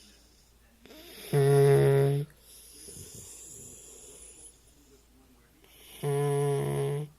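Dog snoring: two loud snores, each a steady pitched drone about a second long, roughly four and a half seconds apart, with softer breathing between them. The owner thinks the collar the dog wears is the reason he snores.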